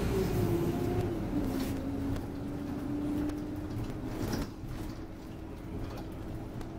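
Alexander Dennis Enviro200 MMC bus running along a road, heard from inside the cabin at the front: a low running rumble under a whine that falls in pitch over the first second and a half, holds steady, then drops away about four and a half seconds in.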